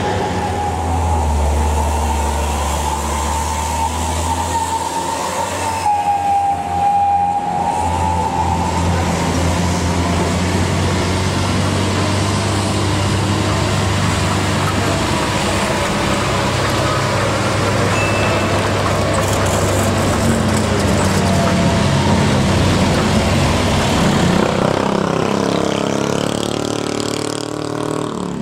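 Heavy diesel trucks climbing a steep grade: a continuous engine drone with a strong low rumble and a higher whine that wavers in pitch.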